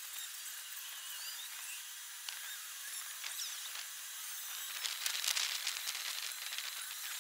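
Outdoor ambience of small birds chirping over a steady high hiss, with a louder, denser high-pitched chatter about five seconds in.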